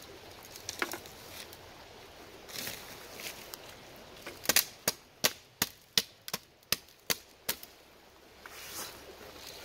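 Anglo Arms 22-inch machete chopping into saplings and brush. One blow lands about a second in, then a quick run of about ten sharp blows, roughly three a second, is followed near the end by a rustle of brush.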